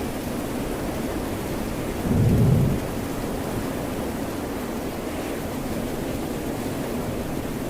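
Steady rain and ocean surf noise, with one brief deep rumble about two seconds in.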